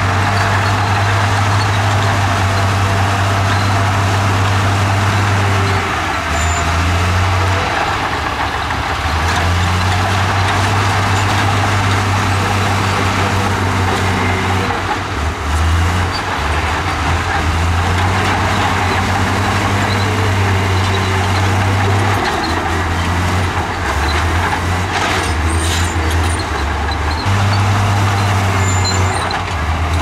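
Komatsu crawler bulldozer's diesel engine running steadily as the dozer pushes dirt and rock. Its low drone shifts in pitch a few times.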